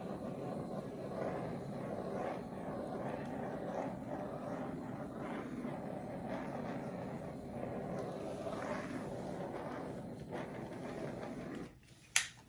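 Heat tool running steadily over wet acrylic paint to pop air bubbles on the surface, then cutting off near the end, followed by a sharp click.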